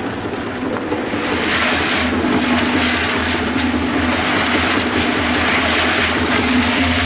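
Tractor-driven concrete mixer turning, with wet concrete and gravel sloshing and churning inside the drum, over the Steyr 50 tractor's engine running steadily. The churning grows louder about a second in.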